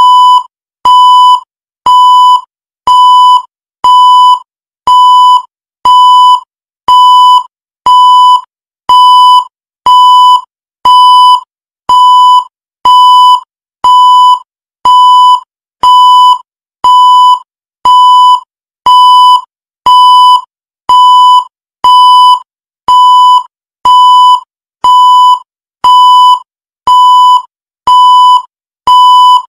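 Countdown timer's electronic beep, one steady mid-pitched tone about half a second long, repeating once every second to mark each second counted down.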